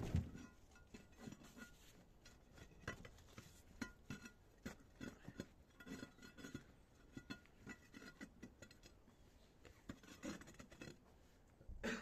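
One thump at the start, then faint, irregular scuffs and clicks of trainers stepping on gritty paving slabs.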